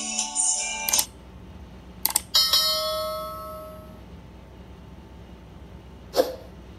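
Notification-bell sound effect from a subscribe-button animation: a couple of clicks, then a single bell ding that rings out and fades over about a second and a half. Intro music cuts off about a second in, and another sharp click comes near the end.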